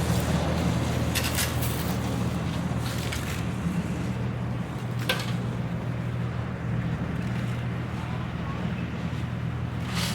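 Engine running steadily, with a few sharp knocks or clicks over it.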